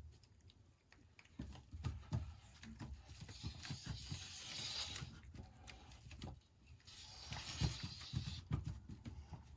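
Soft, irregular thumps of a cat's paws on a homemade cat exercise wheel, with a hissing rustle twice: in the middle and near the end.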